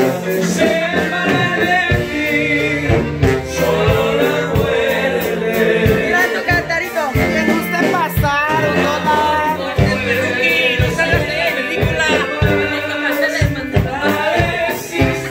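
Latin American song with a male voice singing over a steady beat.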